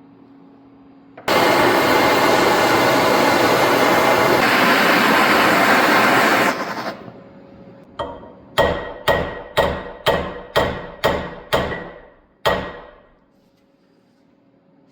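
A torch hissing steadily for about five seconds as it heats a bent metal part, then cutting off. A few seconds later a hammer strikes the heated metal about nine times, roughly two blows a second, each blow ringing, to straighten the part.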